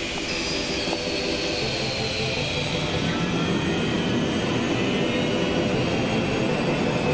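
Airliner turbofan jet engine running: a steady rumble under a high whine that slowly falls in pitch.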